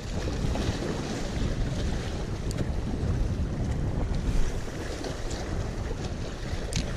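Wind buffeting the microphone over small waves washing and splashing against the rocks of a jetty.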